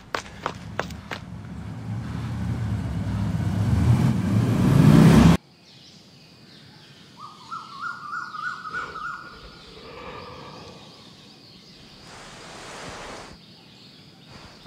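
Quick footsteps, then a rising noise that swells for about four seconds and cuts off abruptly. It is followed by quiet with brief bird chirps and a faint, steady insect-like hum.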